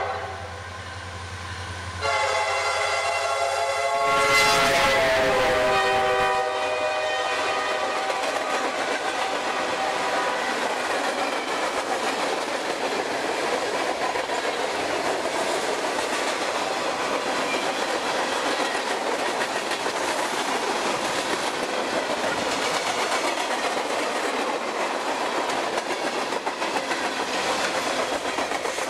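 Norfolk Southern freight train passing close by. The SD70M's high-pitched five-chime K5LA horn is quieter for a moment, sounds loud again about two seconds in, drops in pitch as the locomotive goes past and stops about six seconds in. After that comes the steady clatter and rumble of the freight cars' wheels on the rails.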